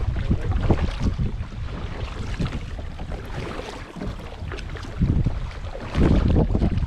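Wind buffeting the microphone in uneven gusts out on open water. It eases in the middle and swells again about a second before the end.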